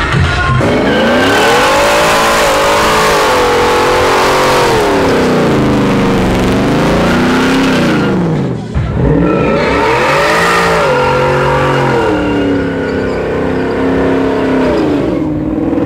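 Ford F-150 pickup engine revving hard through a burnout, its pitch climbing and falling in long waves over the hiss of the rear tyres spinning on concrete. The revs drop sharply about nine seconds in, climb again, and fall away near the end.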